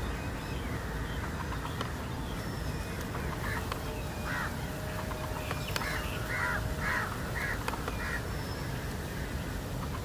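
Crow cawing: a series of about seven short caws, beginning a few seconds in and coming close together through the middle, over a steady low background rumble.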